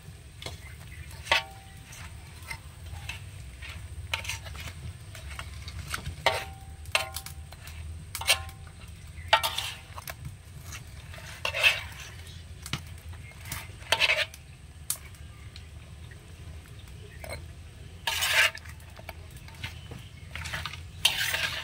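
Metal spoon stirring fried goja pastries in sugar syrup in a steel bowl, with scattered scrapes and clinks against the bowl, a few of them ringing briefly.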